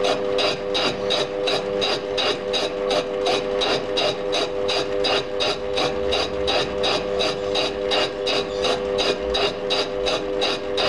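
Lathe-mounted fly cutter taking an interrupted cut across the end of a model steam-engine cylinder casting: the tool strikes the metal once per revolution in an even rhythm of about three to four strikes a second, over the steady hum of the lathe's drive.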